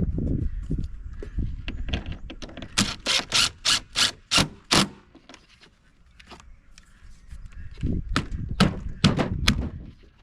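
Sharp knocks and clatter of parts being handled during reassembly of an inverter generator's housing, with a run of about seven quick, evenly spaced raps about three seconds in and another cluster of heavier knocks near the end.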